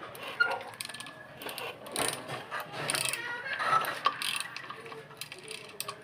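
Ratchet wrench clicking in irregular runs as it turns a bolt on a generator's alternator housing.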